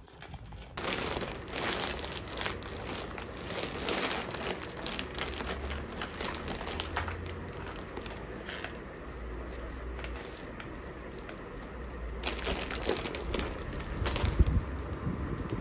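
Plastic rustling and crinkling from an artificial boxwood grass panel being handled among plastic bags. The sound starts suddenly about a second in, continues as dense crackly handling, and has a louder bump near the end.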